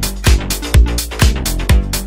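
Background electronic dance music with a steady beat, about two kick-drum hits a second.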